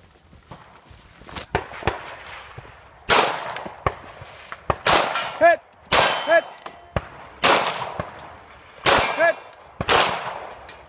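Six pistol shots, roughly a second apart, fired at steel targets. Three hits come back as a short metallic ring from the struck steel plate, each ring arriving a moment after its shot.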